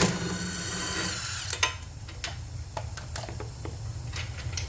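A power tool's motor coasting down over the first second after a burst, then scattered light metallic clicks and taps of tools and bolts being handled while the carburetor mounting bolts come out.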